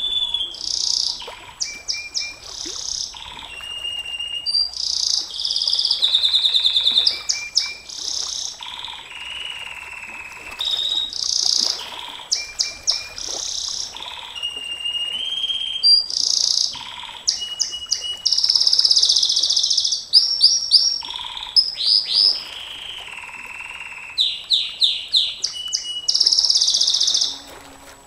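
Domestic canary singing a long, unbroken song: fast trills and rolls alternate with short, level whistled notes and rapid series of quick repeated notes.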